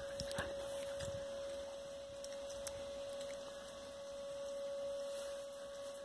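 A steady, single-pitched hum with a few soft knocks in the first second.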